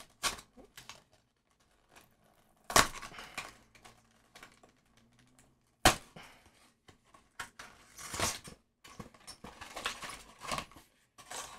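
Cardboard trading-card trial deck box being worked open by hand: short rustling tears and scrapes of paperboard, with two loud sharp snaps about three and six seconds in. Near the end the shrink-wrapped deck is pulled out of the box.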